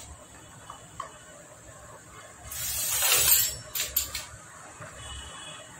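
A loud hiss about a second long, swelling and then dying away, about halfway through, followed by a few sharp clicks as the scooter engine is handled.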